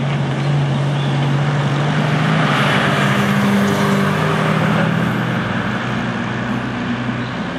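A motor vehicle engine running with a steady low hum over general street noise, a little louder in the middle.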